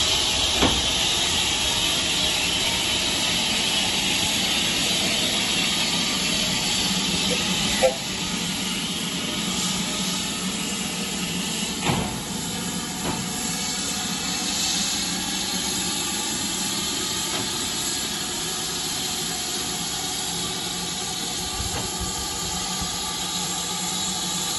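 BR Standard Class 4 4-6-0 steam locomotive standing with steam hissing steadily from around its cylinders, with no exhaust beat. A few short sharp knocks, the loudest about eight seconds in.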